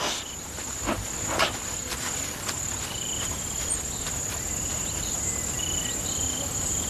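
Insects trilling in dry grassland: a steady high-pitched buzz with short repeated chirps over it. A few dry crackles come in the first second and a half.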